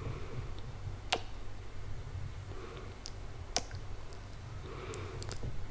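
Close-up kiss sounds made right at the microphone: a few sharp lip smacks a second or two apart, with soft breathy sounds between them.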